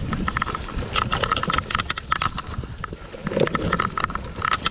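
Mountain bike riding fast down a rooty dirt singletrack: the bike rattles and clatters with many quick clicks and knocks over a steady rumble.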